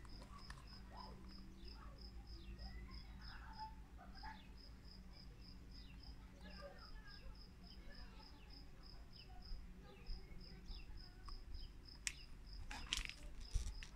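Faint insect chirping: a steady train of short high pulses, about five a second, with a few brief breaks. A couple of brief sharp noises come near the end.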